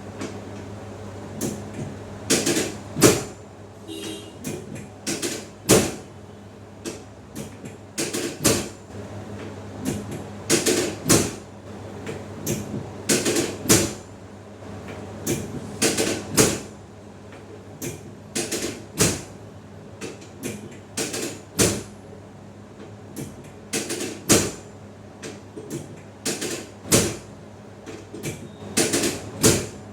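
Irregular sharp knocks and clicks, often in quick clusters, from hands and bodies working on a chiropractic treatment table, over a steady low hum.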